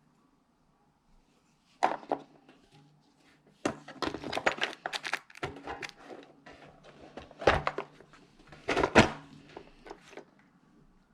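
Handling clatter: a series of sharp clicks and knocks as the parts and case of a thread repair kit are handled, coming in clusters, with the two loudest knocks in the second half.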